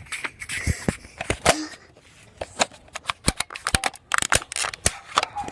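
An irregular run of sharp plastic clicks and clacks, thickest in the second half: Nerf foam-dart blasters being handled, primed and fired.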